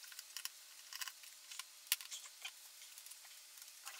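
Hands and a small screwdriver working inside a disassembled iMac G5: scattered small clicks, ticks and rustles of screws, cables and metal parts, with one sharper click about two seconds in.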